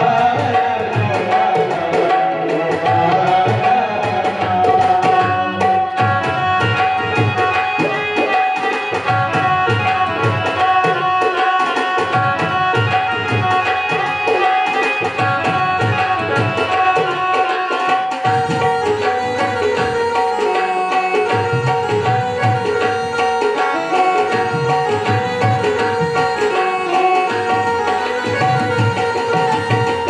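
Tabla playing a steady, lively rhythm under sustained held melody notes: the instrumental accompaniment of a Hindu devotional bhajan.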